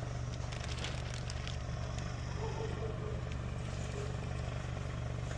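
Steady low rumble with a few faint rustles and clicks in the first second and a half.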